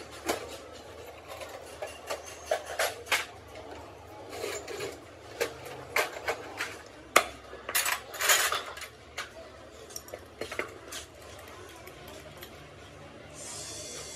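Metal hand tools clinking and clattering against each other and a steel toolbox, a long run of sharp irregular clinks that thins out after about eleven seconds. A soft hiss comes in near the end.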